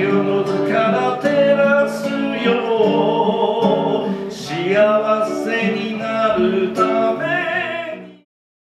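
A man sings a Japanese song in a live vocal while accompanying himself on acoustic guitar. The music fades out near the end and stops, leaving silence.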